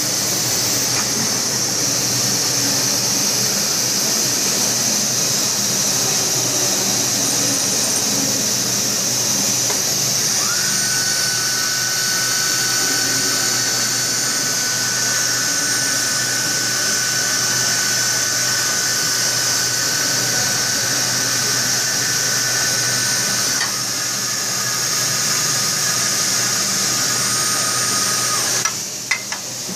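Swiss-type CNC lathe machining brass, running with a steady high hiss. A high, steady whine comes in about ten seconds in, steps down in pitch a little past two-thirds of the way, and cuts off near the end with a couple of clicks.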